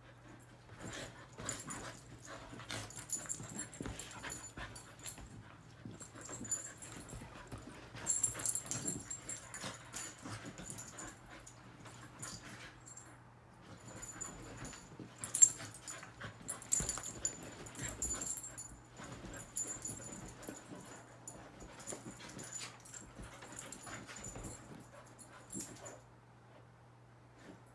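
Two curly-coated dogs play-wrestling on a bed: an irregular run of short scuffling noises and dog noises in bursts, which stops near the end.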